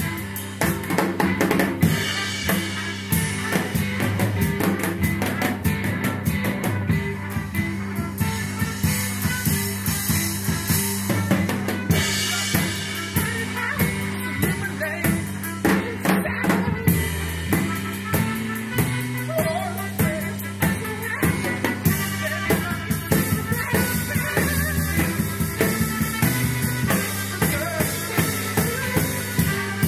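Instrumental passage of an indie/punk rock song with no vocals: a drum kit plays a busy, driving beat of snare, bass drum and cymbal hits over electric bass, with trumpet and guitar in the band.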